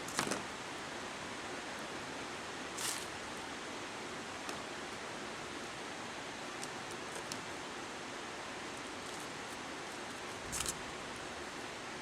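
Steady hiss with three short rubbing, rustling sounds (at the start, near three seconds in and near the end) as a rubber vent-window weatherstrip is pressed and worked into its channel by hand.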